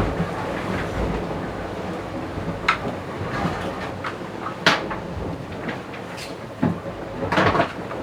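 IMOCA racing yacht under way: a steady rush of water and wind noise on board, with a few sharp knocks and clatters from the deck gear, one about three seconds in, one near the middle and a brief cluster near the end.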